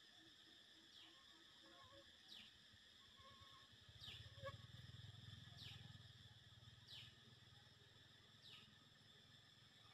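Faint outdoor ambience: a high chirp that falls in pitch, repeated about every second and a half over a steady high insect-like drone. A low rumble joins about four seconds in and lasts a few seconds.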